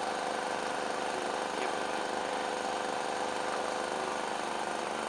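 An engine running steadily at an unchanging speed.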